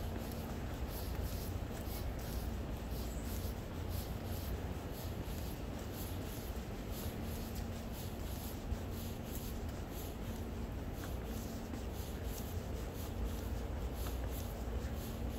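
Footsteps scuffing along a city sidewalk at a steady walking pace, over a low, steady hum of street traffic.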